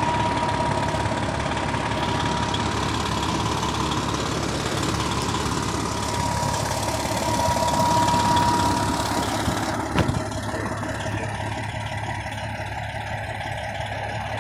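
Pierce Dash ladder truck's diesel engine idling steadily, with a thin steady whine over it. A single knock about ten seconds in, after which the idle is quieter.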